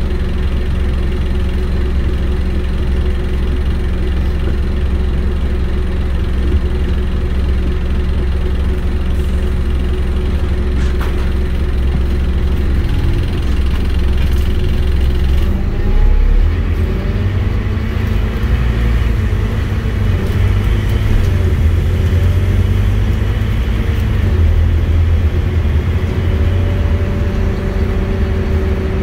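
Scania N270UD double-decker bus's diesel engine heard from inside the bus, running steadily at low revs for the first half. About halfway through it rises in pitch as the bus accelerates.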